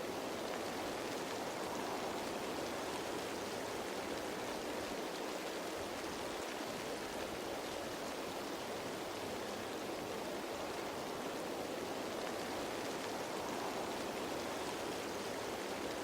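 Steady rain falling on leaves: an even, unbroken hiss of raindrops.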